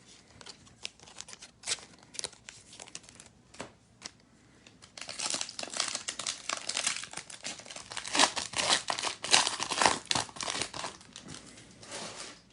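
Foil trading-card pack wrapper being handled, then torn open and crinkled. There are scattered crackles at first, then dense crinkling from about halfway through that stops suddenly near the end.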